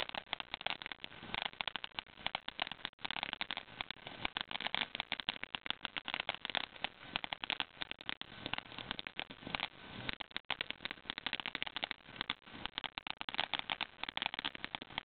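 Firework crackling continuously: a dense, irregular stream of sharp little pops and crackles that never pauses.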